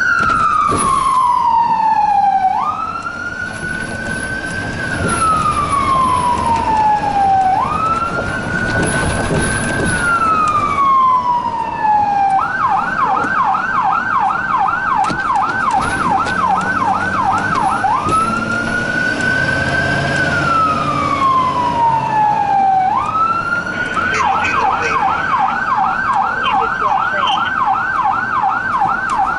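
Emergency vehicle siren heard from inside the responding rescue truck's cab. It sounds a slow wail that jumps up and sinks down every few seconds, and about halfway through it switches to a fast yelp of roughly three sweeps a second. It goes back to the wail, then returns to the yelp near the end.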